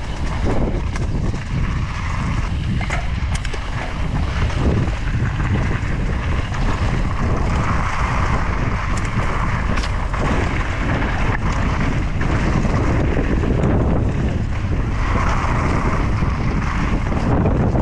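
Wind rush on the microphone and a steady rumble from a mountain bike riding fast down a dirt trail, with scattered sharp knocks and rattles.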